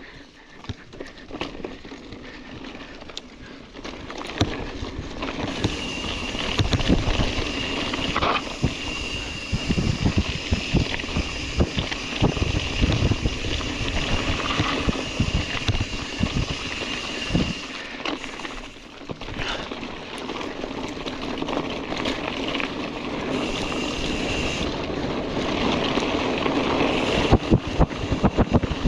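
Mountain bike ridden over a rough dirt trail: wind buffeting the microphone, tyres on loose ground and the bike jolting over bumps, with many low thuds.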